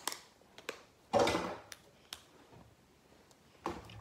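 Hand-kneaded slime: faint sticky clicks and pops as it is pressed and pulled, with one louder half-second noise about a second in.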